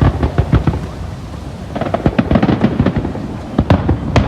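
Fireworks going off: a rapid volley of sharp bangs and crackles with deep booms, densest a little under two seconds in and with a heavy boom near the end.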